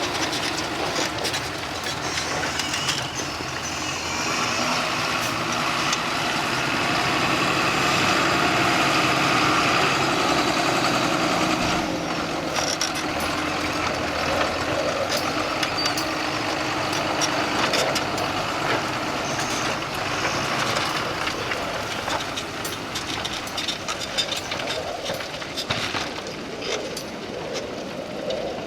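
John Deere 6930 tractor's six-cylinder diesel engine working under load while ploughing. It grows louder from about four seconds in and drops back around twelve seconds.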